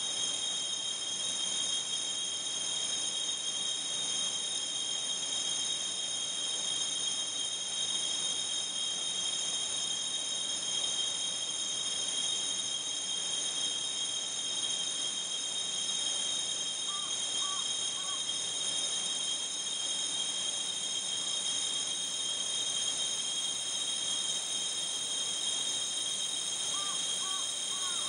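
Roaring waterfall noise pushed through narrow EQ peaks so it rings at several steady high pitches, like a chorus of autumn insects, with a slight tremolo wobble. A few faint chirps come through about two-thirds of the way in and again near the end.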